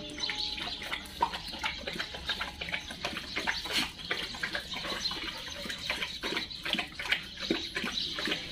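Several dogs lapping water from a stainless steel bowl, a quick irregular patter of laps and splashes.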